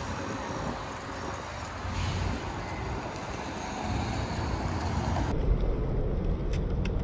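Street traffic at a city intersection: a steady wash of passing road vehicles with a low rumble. About five seconds in the sound changes abruptly and the low rumble gets heavier.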